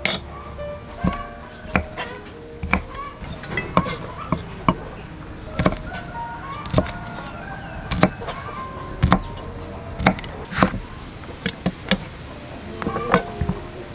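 Large kitchen knife chopping on a thick round wooden chopping block: irregular sharp knocks, some in quick runs of two or three, as garlic and long beans are cut.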